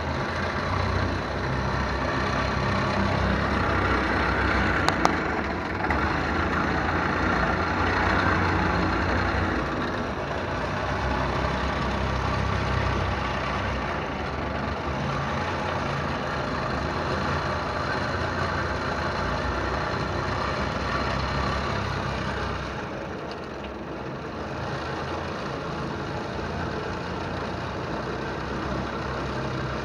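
Truck engine running steadily, with a single sharp click about five seconds in. The engine note drops slightly and settles about three-quarters of the way through.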